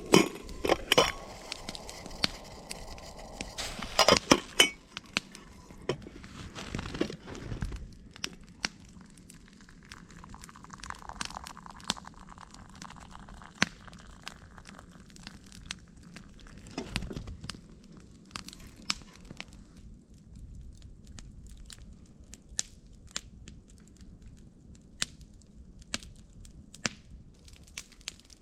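Campfire crackling, with scattered sharp pops. For the first several seconds there is louder crunching and a few knocks over it.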